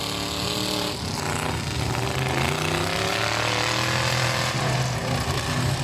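Engines of demolition derby pickup trucks running and revving, their pitch rising and falling.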